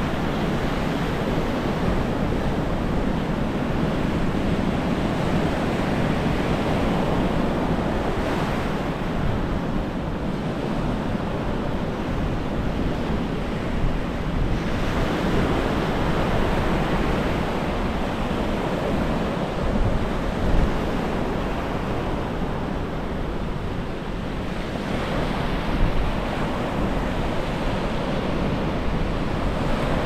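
Sea waves breaking and washing up a sandy shore, with wind buffeting the microphone. The surf swells into louder rushes about every five to ten seconds.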